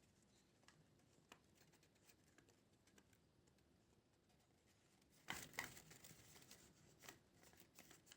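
Faint paper rustling with scattered small clicks, very quiet overall, with a short louder rustle about five seconds in.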